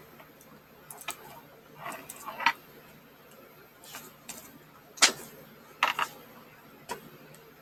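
Irregular clicks and rattles as a pocket chainsaw, a chain with a handle at each end, is handled and unpacked, several in quick clusters with the loudest about five seconds in.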